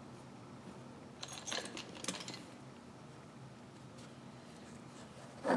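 Quiet hand-tool handling: a short run of scratchy scrapes about a second in as a steel ratchet head is worked over with a shop rag and a small screwdriver, then a single brief, louder knock at the very end.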